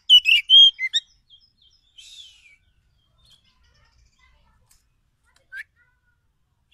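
Oriental magpie-robin (kacer) singing: a quick run of loud, clear whistled notes in the first second, then a fainter falling phrase about two seconds in and a single short note near the end.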